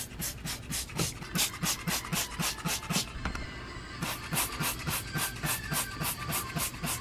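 Trigger spray bottle of degreaser squeezed rapidly, a short hiss of spray with each pull of the trigger, about four a second, with a brief pause about three seconds in.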